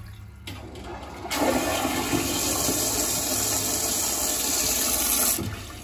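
Ove Lena smart toilet flushing, set off from its remote: a steady rush of water starts about a second in and stops fairly sharply near the end.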